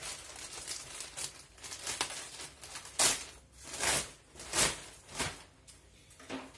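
Clear plastic packaging bag being torn open and pulled apart by hand, crinkling and rustling in a series of bursts, the loudest about three to five seconds in.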